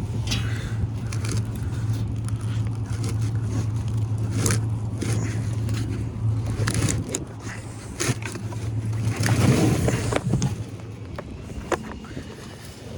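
Knocks and scrapes of a heavy forklift battery cell being worked loose from where it is wedged in the steel case, with the longest, loudest scrape a little after nine seconds. A steady low hum runs underneath and stops about ten seconds in.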